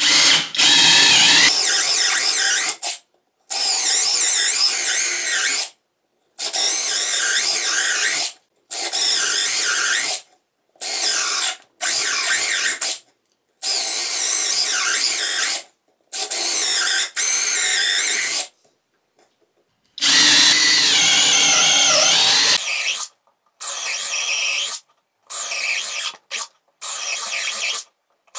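Parkside Performance PBSPA 12 B2 12 V brushless cordless drill driver boring holes with a 10 mm bit, in about a dozen bursts of one to three seconds each with short silent gaps between them.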